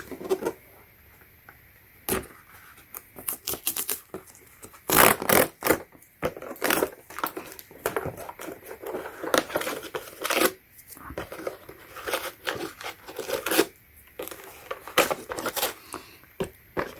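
Product packaging being torn open by hand: irregular tearing, crinkling and sharp snaps as a tear-off pull strip is worked that doesn't tear cleanly.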